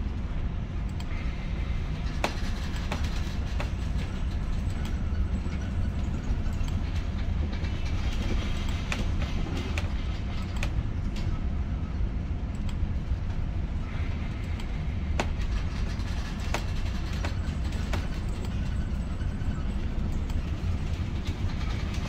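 Steady low rumble of a ship under way, its engine and hull vibration, with scattered sharp clicks and rattles.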